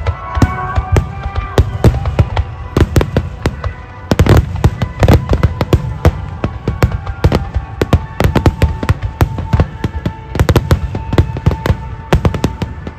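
Barrage of aerial firework shells bursting overhead, many sharp bangs a second in quick succession. The bangs come thickest from about four seconds in.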